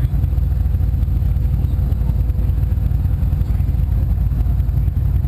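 Powerboat engine idling at low harbour speed: a steady, loud, deep rumble.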